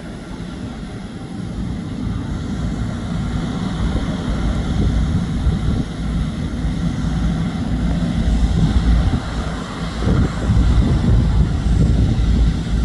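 Jet airliner engines running on the ground: a steady low rumble with a faint steady whine above it, slowly growing louder, with wind buffeting the microphone.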